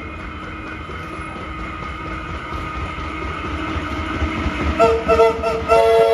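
Vintage Tait electric train approaching, its rumble on the rails growing louder. Near the end the train's whistle gives several quick short toots and then a long held blast, a chord of several tones.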